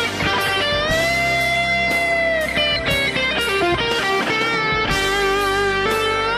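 Background music led by an electric guitar, with plucked notes and a long bending note held in the middle.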